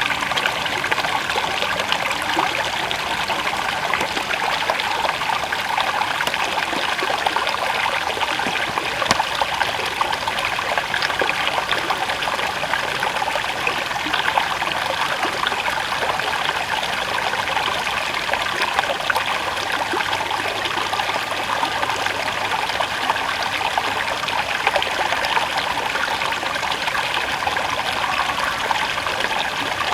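River water flowing steadily over a stream bed, an even rushing sound with a fine, busy texture.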